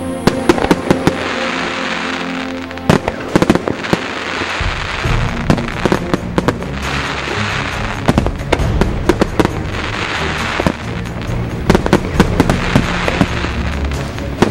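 Aerial firework shells bursting in quick clusters of sharp bangs, with crackling between them.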